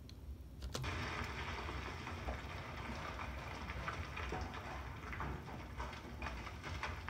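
A crumbling-stone sound effect: a sharp crack under a second in, then a steady gritty crackle of many small ticks over a low hum.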